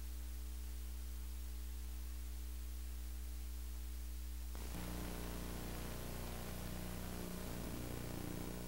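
Steady low electrical hum with its overtones from a VCR playing the start of a VHS tape; about halfway in, tape hiss comes up over it as the picture breaks into tracking static.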